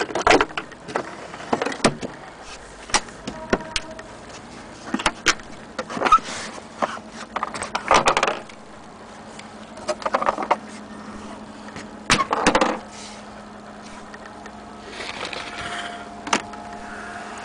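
Handling noise from a portable record player and a record: scattered clicks, knocks and short rustling scrapes. A faint steady low hum runs through the second half.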